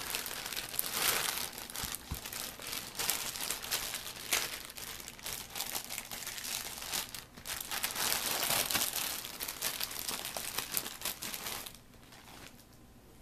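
Clear plastic packaging bags crinkling and rustling as an action figure and its wrapped parts are pulled out of them, with sharp crackles throughout; the crinkling dies down near the end.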